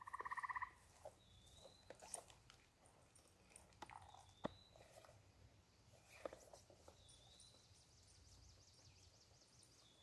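Faint backyard wildlife calls: a short pulsed trill right at the start, the loudest sound, then a short rising whistled note repeated about every three seconds, scattered chips, and a fast high trill over the last two or three seconds.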